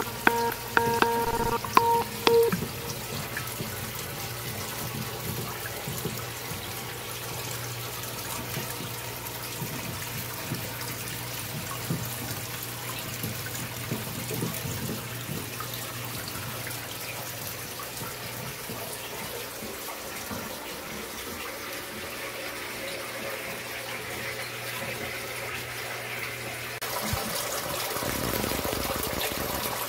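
Water running and splashing steadily into a turtle tank, with a low steady hum under it. Near the end the water sound grows louder and hissier.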